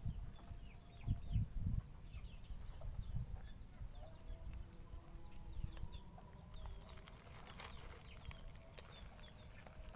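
A cat's fur brushing against the phone's microphone, heard as low rumbling thumps about a second in. Small birds chirp in short high notes throughout, and a cluster of sharp clicks near the end fits cats chewing food.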